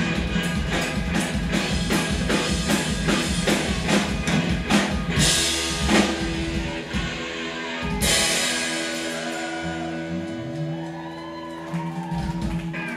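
Live rock band playing electric guitars, bass and a full drum kit on a steady driving beat. About eight seconds in, after cymbal crashes, the drums drop out and held guitar and bass notes ring on and slide, as at the close of a song.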